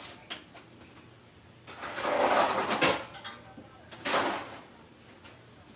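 Kitchen handling noise: a scraping rustle about two seconds in that lasts about a second, then a shorter one about four seconds in.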